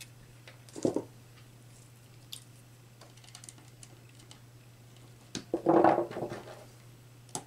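Small clicks and knocks of hands working a screwdriver, wires and a plastic magnetic contactor on a wooden bench while wiring its coil terminals: a louder knock about a second in and a longer clatter near the end, over a faint steady low hum.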